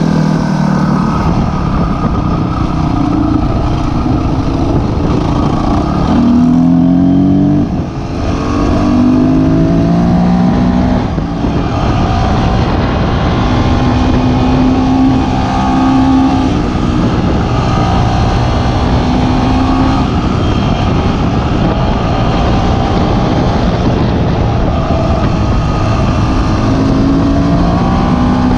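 Dirt bike engine revving as the rider pulls through the gears, its pitch climbing in short runs and dropping at each shift. Heavy wind noise sits on the microphone under it.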